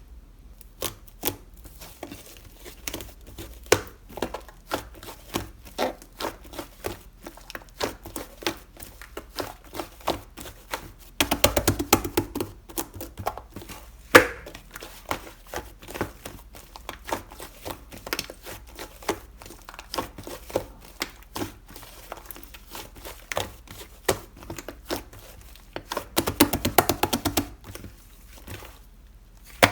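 Cream slime being pressed and worked by hand, making crisp clicks and pops a few times a second, with two spells of rapid crackling, one about eleven seconds in and one near the end.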